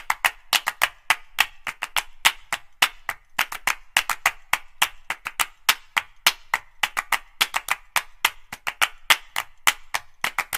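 A quick, uneven run of sharp claps, several a second.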